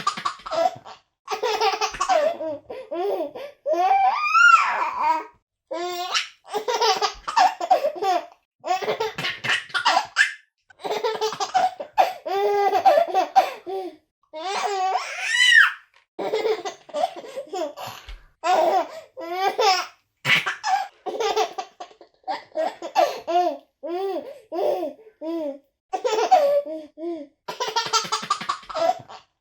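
A baby laughing in bouts of giggles and belly laughs, with a couple of high squeals rising in pitch.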